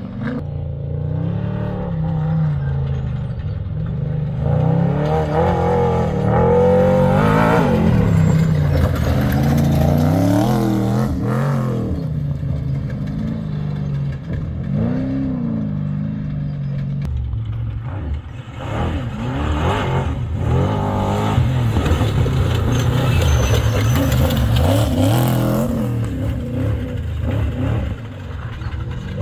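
Trophy truck engines revving hard as the race trucks pass at speed, the engine pitch rising and falling through throttle and gear changes. There are two long passes, one in the first half and one in the second.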